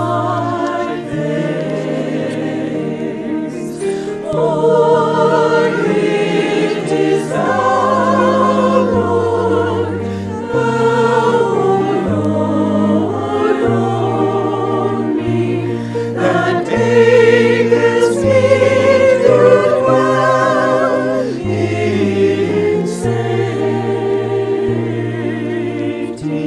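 A choir singing church music over an accompaniment of held low notes that change every second or two, loudest a little past the middle.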